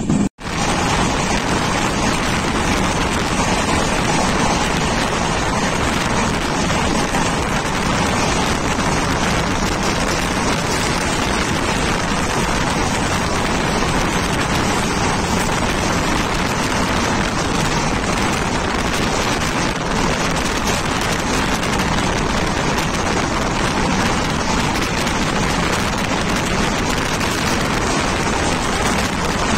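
Steady rush of wind and rumble of a fast-moving express train, heard from on board with wind buffeting the microphone. It begins abruptly after a short break.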